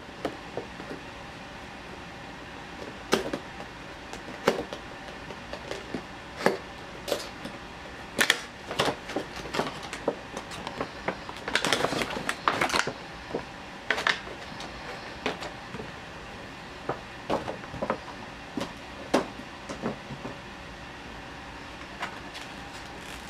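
Plastic-and-cardboard headphone packaging being opened and handled. The clear plastic tray gives scattered clicks and crackles, with a longer burst of plastic crinkling about twelve seconds in, over a steady low background hum.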